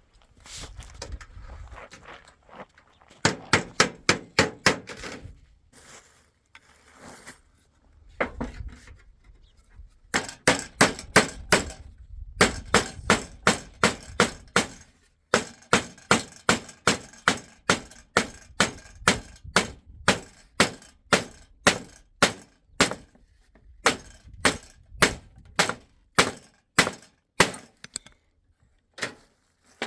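Hammer blows on the wooden boards of a door: a quick run of strikes about three seconds in, then after a pause a long series of blows, fast at first and settling to about two a second until near the end.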